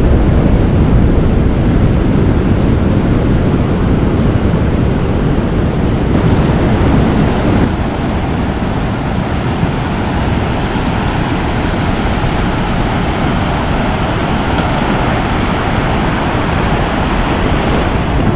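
Ocean surf breaking and washing up a beach, with a heavy rumble of wind on the microphone.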